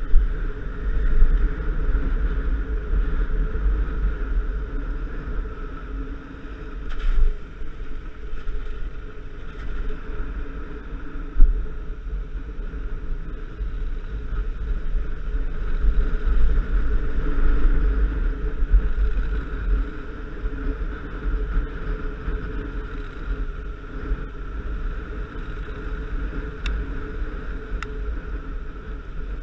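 Adventure motorcycle running steadily along a rough mountain road, heard from on board, with wind buffeting the microphone in a heavy low rumble. A few sharp knocks break through, the loudest about eleven seconds in.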